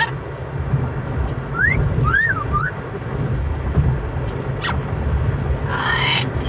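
Steady low road rumble of a moving car, with an Amazon parrot whistling a few short rising and falling notes about two seconds in, a brief squeak later, and a louder call near the end.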